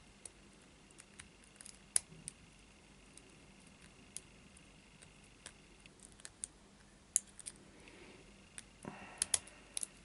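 Lock pick and tension wrench working inside a small brass five-pin padlock: faint scattered metal clicks and scrapes, with a sharper click about two seconds in and a quick cluster of clicks near the end.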